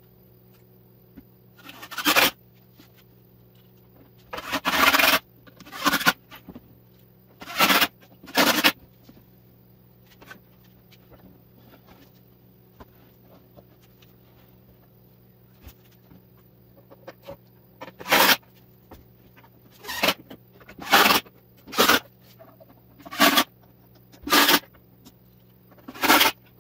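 Cordless drill run in about a dozen short bursts, drilling and driving screws through a wooden shelf unit into the wall studs, with a quiet pause of several seconds in the middle.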